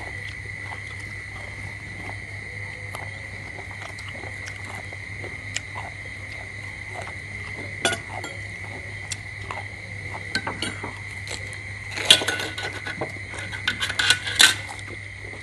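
Table eating sounds: scattered light clicks and clinks of dishes and of balut eggshells being cracked and peeled by hand, busiest about twelve seconds in and again near the end. A steady high tone and a low hum run underneath.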